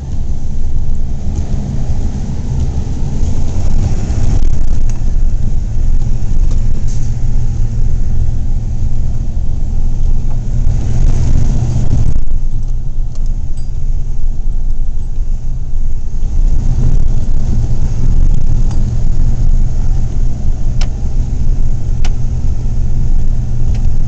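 Car driving slowly through deep snow, heard from inside the cabin: a loud, steady low rumble of engine and tyres, with a brief swell of hiss about halfway through and two faint clicks near the end.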